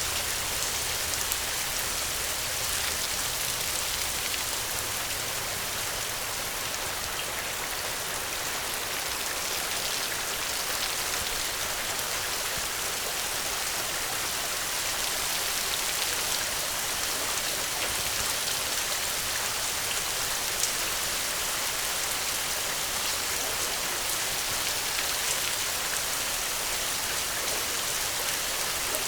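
Steady rain falling on a surface, a dense even hiss with many fine individual drop ticks.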